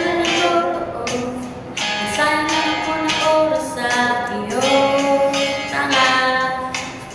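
A song with a woman singing long, held notes that slide between pitches, over instrumental backing.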